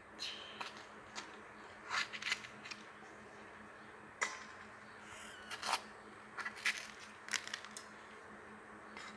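Faint, irregular crisp clicks and small snaps of green chilies being cut with a knife and the pieces set down among the sliced tomatoes and onions in a pressure cooker.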